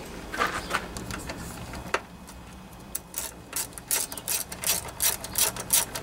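Hand ratchet wrench clicking as a bolt is run down, a few scattered clicks at first, then a steady run of about four clicks a second from about halfway through.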